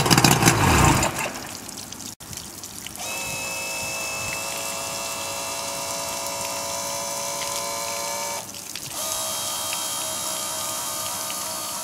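1993 Mercury 75 hp two-stroke outboard running loud for about the first second, then gone. After that, water pouring and splashing steadily from the outboard's lower unit onto wet concrete, dipping briefly near the end.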